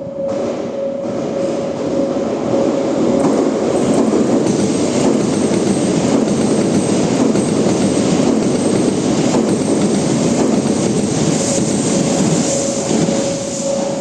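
E8 series Shinkansen passing through without stopping, its wheels clacking over the rail joints. The train noise builds about a second in and eases near the end. A level-crossing alarm's steady electronic tone sounds throughout.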